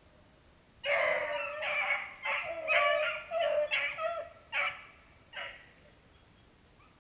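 Beagles baying in a quick run of about eight calls, starting about a second in and stopping after about five seconds: hounds giving tongue as they run a rabbit's scent.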